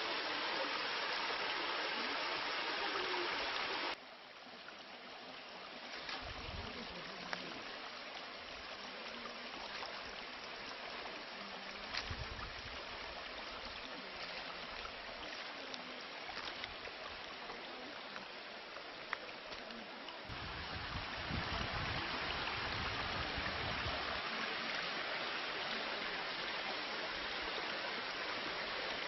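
Rushing water of a mountain stream, a steady hiss. It drops abruptly about four seconds in and grows louder again about twenty seconds in, with a few low rumbles along the way.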